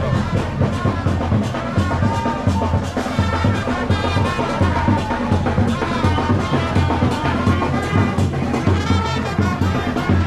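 Brass band music with trumpets and a steady drum beat.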